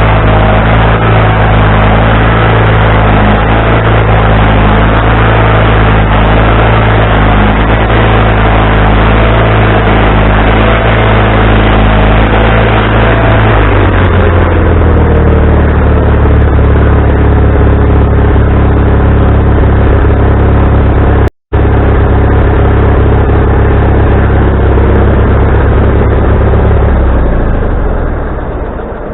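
Gasoline engine of a Wood-Mizer LT40HD sawmill running at high speed, dropping to a lower steady speed about halfway through, then winding down near the end. The owner says the engine is surging and puts it down to a carburetor needing adjustment or cleaning.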